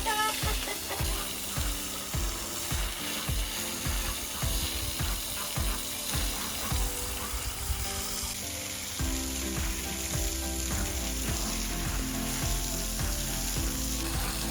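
Sizzling like food frying, with regular low knocks about twice a second through the first half, then a steady low hum from about nine seconds in.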